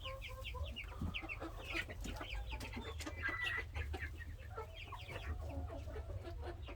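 A flock of chickens clucking and cheeping, many short calls from many birds overlapping.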